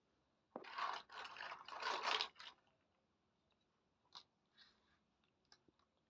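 Packaging being handled for about two seconds, a dense crinkling and scraping, followed by a few light clicks and taps as small toy pieces are handled.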